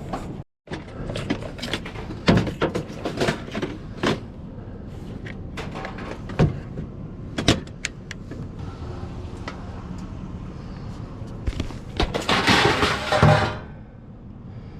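Rummaging through dumpster contents by hand: scattered knocks, clanks and rustling over a steady low hum, with a louder rustling, scraping burst about a second long near the end. The sound drops out for a moment just after the start.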